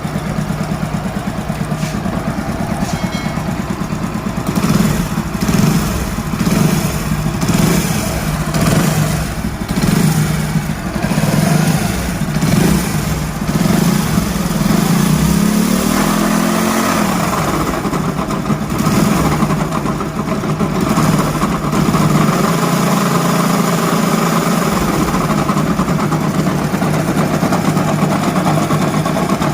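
Hero Honda single-cylinder motorcycle engine running, blipped up and down repeatedly in the first half, revved once with a rise and fall about halfway, then idling steadily. The engine carries the noise of a worn crankshaft bearing.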